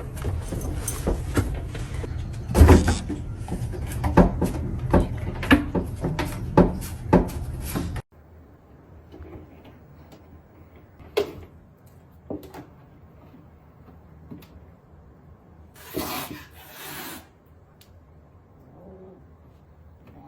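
Wooden knocks and thumps, like cupboard doors and panels being bumped: a quick run of them at first. After a sudden cut there is a quieter room with a few single knocks and a brief rustle.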